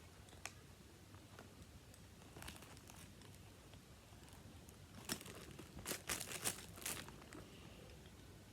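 Packaging being handled and crinkled: a few faint crackles, then a burst of sharp crinkling about five to seven seconds in.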